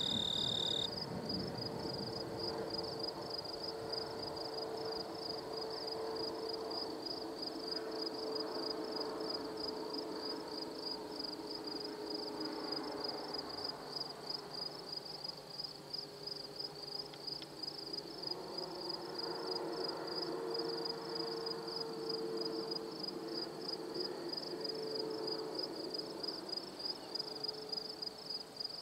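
Rapid, steady pulsing trill of crickets or similar field insects, the loudest sound, over the low, distant rumble and hum of a loaded coal train's BNSF SD70MAC diesel locomotives, which swells past the middle. A high steady tone cuts off about a second in.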